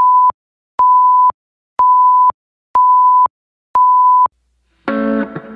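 Film-leader countdown beeps: five identical steady high-pitched tones, about half a second each and about a second apart, each switching on and off with a click. Music starts near the end.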